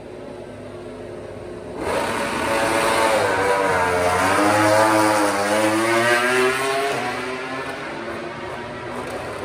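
MotoGP racing motorcycle passing at speed, coming in suddenly about two seconds in. Its engine note drops, then climbs again as it accelerates away, and it fades over the last few seconds.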